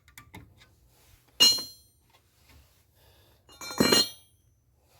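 Metal brake parts clinking as hold-down clips are fitted to a drum brake's new shoes. A few light clicks come first, then two sharp ringing clinks about two and a half seconds apart.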